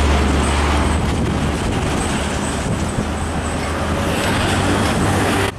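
Two loaded diesel truck-and-trailer rigs, a Hino and a Nissan Diesel, passing close side by side: a deep engine rumble, strongest in the first second, with heavy tyre and road noise that carries on as they pull away. The sound cuts off abruptly just before the end.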